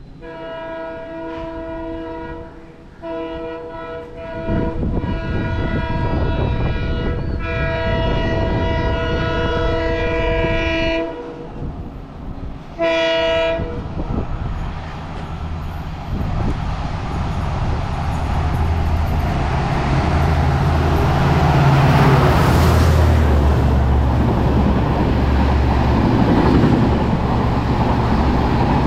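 WDP-4D diesel locomotive's multi-tone horn sounding three long blasts back to back, then a short blast about two seconds later. The train then passes at full speed, the engine's low drone and the wheels' clickety-clack of the coaches growing louder.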